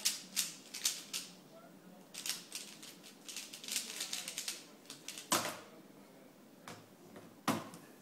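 A Dayan ZhanChi 3x3 speed cube being turned fast, a quick clatter of plastic layer turns. It ends about five seconds in with a loud slap as the solve timer is stopped, and there is another loud knock near the end.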